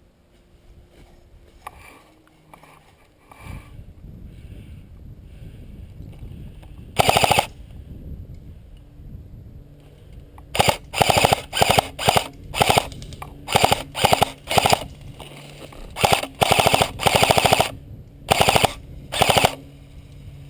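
Airsoft gun firing on full auto in short bursts of rapid BB shots: one burst about seven seconds in, then a long string of quick bursts close together over the last ten seconds.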